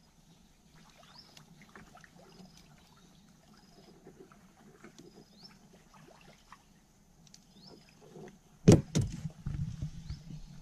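Faint clicks and rustles of a fishing gill net being handled, with a short high chirp repeating about once a second. Near the end a sudden loud knock on the fibreglass boat, then a run of lower knocks and scuffs.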